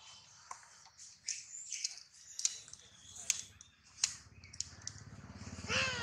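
Scattered short, sharp clicks and chirps among the trees, with a low buzz swelling from about halfway; near the end a macaque gives a loud, wavering cry that glides down in pitch.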